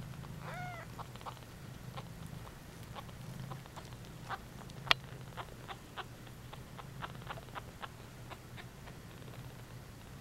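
A two-week-old Bengal kitten gives one short mew near the start. Scattered small clicks and ticks follow for most of the rest, over a low steady hum.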